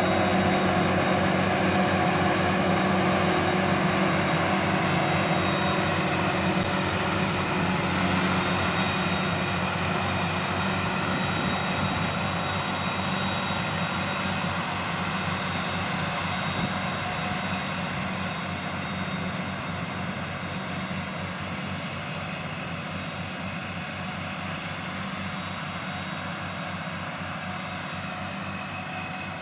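Forage harvester's diesel engine and chopper running steadily under load, heard from inside the cab, gradually getting quieter.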